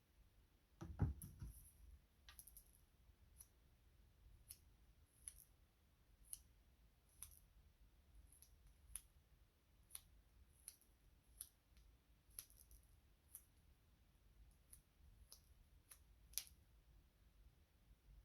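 Faint clicks about once a second from fingernails and hands handling nail polish strips, with one louder soft knock about a second in.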